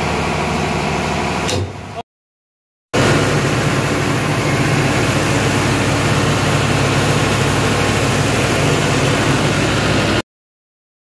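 Diesel generator engine running steadily and loudly, with a strong low hum under a wide noise. Before it comes about two seconds of quieter steady engine-room machinery noise, and the sound drops to dead silence twice, briefly.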